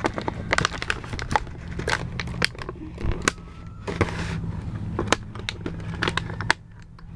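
Plastic and cardboard toy packaging crinkling and clicking as a small Littlest Pet Shop figure is worked free of it, with a short tearing rustle about four seconds in. A steady low hum runs underneath.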